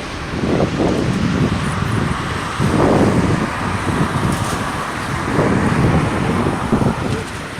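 Airbus A380 jet engines giving a loud, uneven rumbling roar that swells and eases every second or so.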